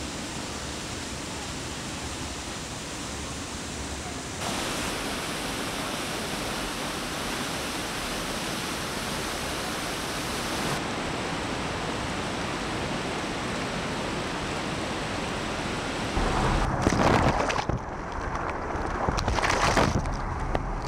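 Steady rushing of a shallow canyon river's water, stepping abruptly in level and tone twice. In the last few seconds, gusty wind buffets the microphone over it.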